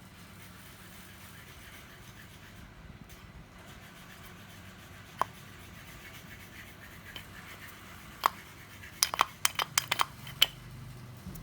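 Faint scratching and rubbing of hand work on small hard parts, with a single sharp click about five seconds in and another near eight seconds, then a quick run of about eight clicks and taps.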